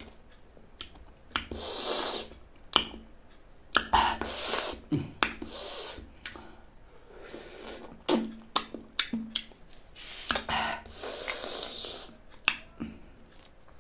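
Close-up mouth sounds of eating passion fruit: the pulp is slurped and sucked from the shell in several bursts about a second long, with sharp wet lip smacks and clicks between them.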